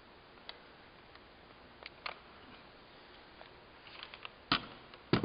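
Soft clicks and rattles of an M1 Garand rifle, with its wooden stock and steel parts, being handled and turned over, ending in two sharp knocks about half a second apart near the end as the rifle is laid down on the table.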